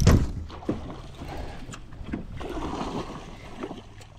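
A cast with a baitcasting rod: a quick whoosh as the rod is swung near the start, then quieter knocks and water sounds as the lure lands and splashes in the shallow water.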